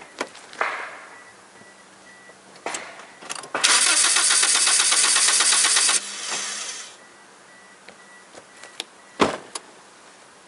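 Toyota Corolla VVT-i four-cylinder gasoline engine cranked on its starter for about two seconds, an even rapid pulsing, to build pressure on a compression gauge in cylinder 4; it cuts off suddenly. A few light clicks come before it, and a sharp thump follows near the end.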